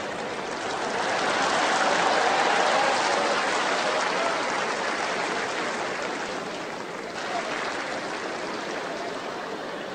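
Stadium crowd applauding, swelling about two seconds in and then slowly dying down.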